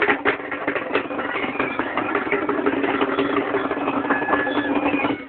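A vehicle engine running steadily close by, a low even drone, under the dense clatter of a pressing crowd.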